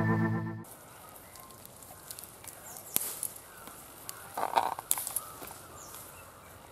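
Channel intro music cuts off about half a second in, giving way to outdoor sound: a few sharp snaps and rustles of moringa branches being pulled down by hand, with a brief animal call about four and a half seconds in.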